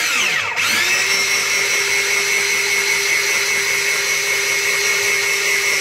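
Electric rotary drum grater's motor spinning up to speed in the first second, then running with a steady whine while its drum shreds a carrot pushed down the feed chute.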